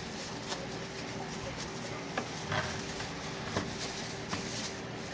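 Plastic filter parts and packaging being handled: scattered light clicks, taps and rustles, over a steady faint hum.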